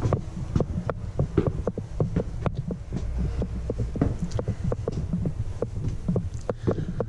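Footsteps climbing stone stairs and then stepping onto wooden floorboards: quick, uneven thuds several times a second over a low steady rumble.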